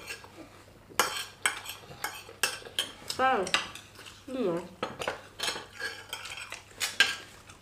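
Metal forks clinking and scraping against plates of fried rice as two people eat, in quick irregular clicks. Two short pitched sounds come a little past the middle.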